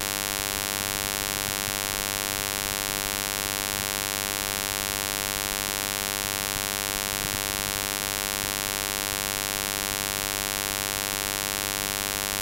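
Steady electrical buzz: a mains-type hum with a dense row of overtones and a constant hiss, unchanging in level and pitch.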